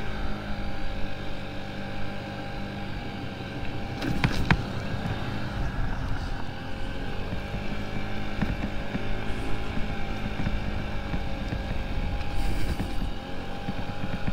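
Honda Ruckus scooter's small engine running at low speed, its pitch drifting a little up and down as it rolls along, with a couple of sharp knocks about four seconds in.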